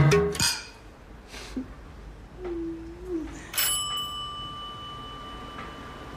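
Two glass champagne flutes clinked together in a toast about three and a half seconds in, giving one bright clink and a clear ringing tone that fades slowly over a couple of seconds.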